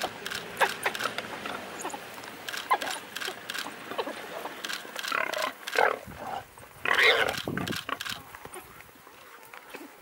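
Warthog squealing as a pack of African wild dogs attacks it, with two loud squeals about five and seven seconds in, amid many short sharp sounds from the struggle.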